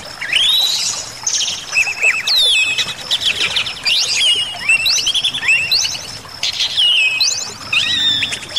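Bali myna (Bali starling) singing a rapid, continuous run of loud whistles and chirps, many notes sweeping up and some stepping down in pitch.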